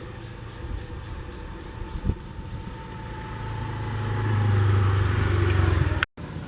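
Diesel train approaching, its engine rumble growing steadily louder over a few seconds, with a single knock about two seconds in. The sound cuts off suddenly near the end.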